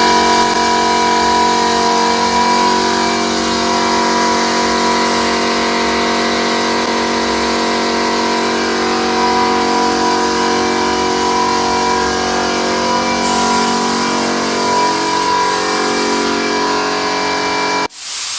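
Air compressor for a paint spray gun running with a steady hum; it cuts off abruptly near the end, giving way to a short hiss.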